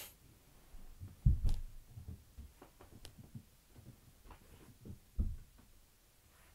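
Dull low thumps and fabric rustling as a person crawls under a kotatsu and moves about beneath its heavy quilt. The loudest thumps come about a second in and again about five seconds in, with softer bumps between.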